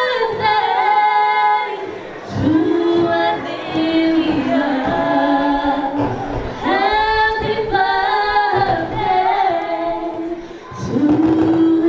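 Two young women sing unaccompanied into handheld microphones, with long held notes and sliding phrases and short breaks about two seconds in and near the end.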